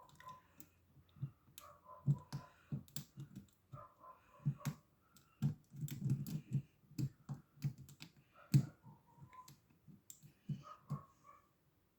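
Irregular small metallic clicks and taps of a hook pick and tension wrench working the pins in a Russian dual-custody padlock's core, busiest around the middle.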